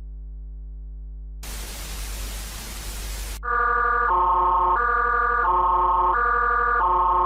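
Emergency alert broadcast audio: a low steady hum, then about two seconds of loud static hiss starting about a second and a half in. The static then gives way to an electronic two-tone alert signal that swaps between a higher and a lower chord about every 0.7 seconds.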